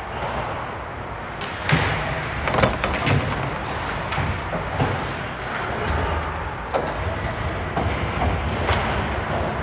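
Ice hockey play: skate blades on the ice over a steady rink noise, with a string of sharp clacks and knocks from sticks, puck and boards, about one a second.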